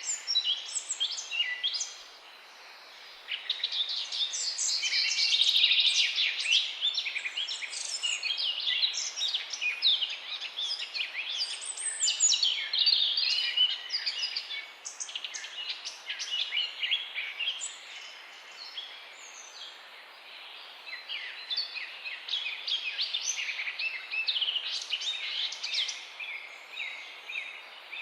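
Several songbirds singing at once in a dense outdoor chorus of overlapping chirps, trills and whistled phrases, with a short lull about two seconds in and a quieter spell past the middle.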